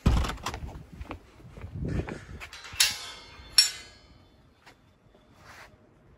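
Footsteps and handling knocks as a handheld camera is carried, with two sharp metallic clinks about three seconds in, then it goes quiet.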